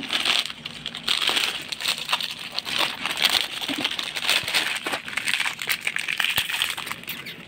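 Plastic biscuit wrapper of a Parle 20-20 Gold choco-chip cookie pack crinkling and rustling as it is handled and torn open, a dense crackle with many small sharp snaps.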